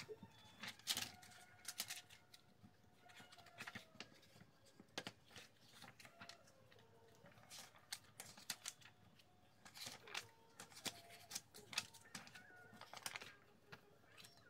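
Paper pages of a plain Moleskine sketchbook being turned and handled by hand: faint, irregular rustles and flicks of paper.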